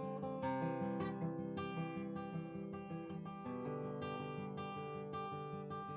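Background music: acoustic guitar picking and strumming a gentle steady pattern.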